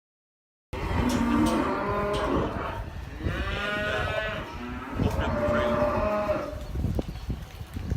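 Weaned calves bawling: three long moos one after another, starting just under a second in, with a low rumble beneath and a single knock near the end.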